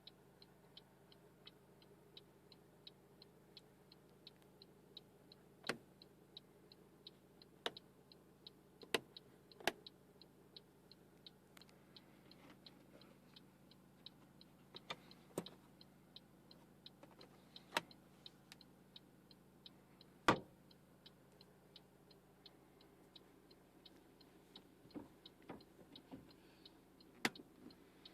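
Faint, even ticking inside a car cabin, about three ticks a second, over a low steady hum. A few louder, sharper clicks fall at irregular times.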